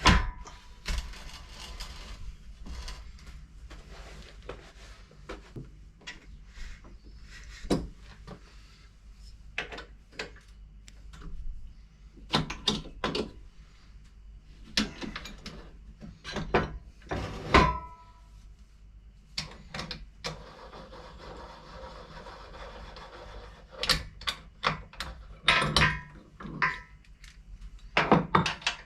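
Irregular metal clanks, knocks and rubbing from steel stock and saw parts being handled and adjusted on a workbench. A few of the knocks leave a brief metallic ring. The saw is not running.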